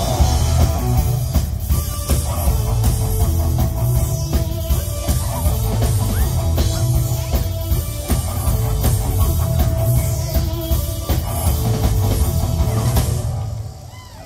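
Live rock band playing loudly through a PA, with electric guitars, keytar synthesizer, heavy bass and a drum kit, and no vocals. The music stops about a second before the end.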